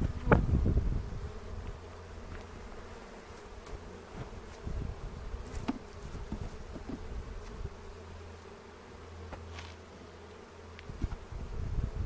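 Honey bees buzzing around an open hive: a steady hum, with a few louder low bumps in the first second and again near the end.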